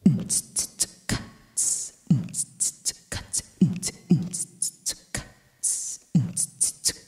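Vocal beatbox beat into a microphone: deep kick-drum thumps, quick hi-hat ticks and longer hissed snare strokes in a steady pattern that repeats about every four seconds.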